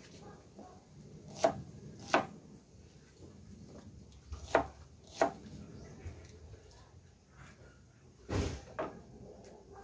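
Kitchen knife slicing through a red onion on a plastic cutting board: four sharp knocks of the blade meeting the board, spaced unevenly over a few seconds. A duller thump follows near the end.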